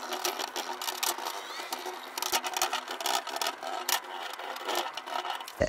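Paintbrush bristles scratching and dabbing rust-treatment liquid onto rusty steel Land Rover headlight retaining rings, a rapid irregular run of small scratchy strokes.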